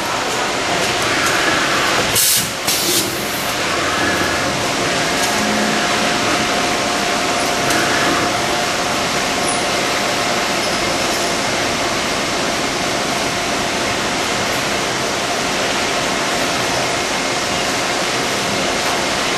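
VMC220L CNC vertical machining center at work: the spindle turns a thin tool cutting inside a cast metal housing under flood coolant, a steady hiss with a faint steady whine. A few short clicks come about two seconds in.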